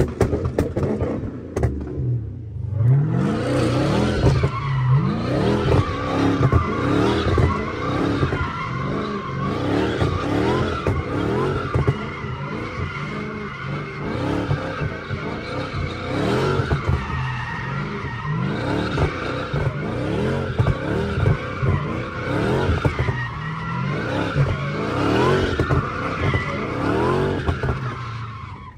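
A car's engine revving up and down over and over while its tyres squeal in a burnout or donuts, heard from inside a car. The sound dips briefly about two seconds in and then runs on loud and unbroken.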